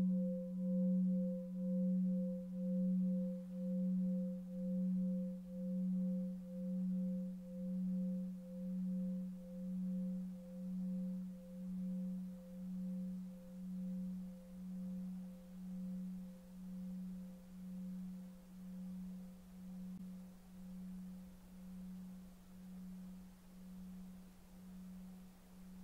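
Singing bowl ringing on after being struck: a low hum with a slow wobble about once a second, fading gradually.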